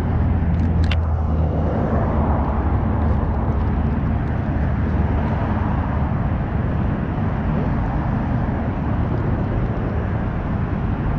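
Steady roar of traffic on a nearby highway, with a deeper low drone strongest in the first few seconds.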